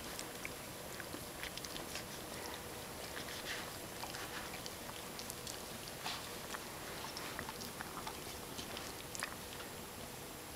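A dog licking and nibbling a cat's fur: short, wet smacks and clicks that come irregularly, over a steady hiss.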